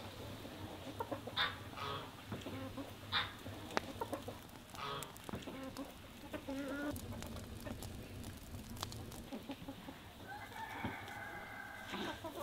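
Domestic chickens clucking in short calls, with a rooster crowing in one long held call near the end.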